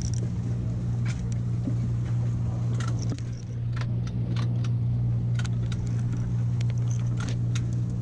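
Boat engine droning steadily as a low hum, with scattered sharp clicks and knocks of gear being handled close by.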